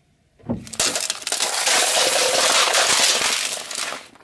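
Car tyre rolling over clear plastic cups packed with Skittles: the cups crackle and split and the hard-shelled candies burst out and scatter with a dense clatter. It starts just under a second in and lasts about three seconds.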